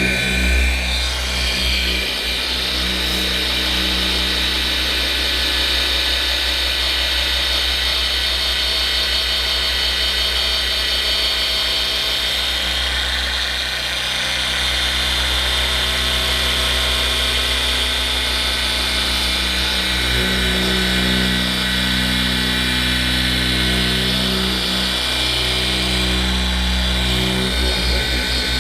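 Dual action polisher running steadily, buffing finishing polish on car paint; its hum shifts a little about twenty seconds in.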